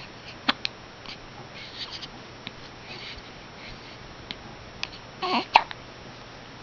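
Newborn baby hiccuping: short, sharp hiccups about half a second in and again near the end, with soft little baby noises in between and a brief squeak just before the loudest hiccup.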